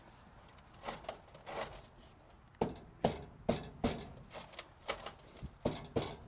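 Hard objects knocking and clattering: a dozen or so sharp strikes at irregular intervals, sharpest in the second half.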